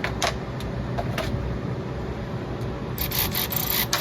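Hands working metal brake parts: a few light clicks, then about three seconds in a choppy scraping rub as the brake caliper bolts are hand-threaded in, over a steady low rumble.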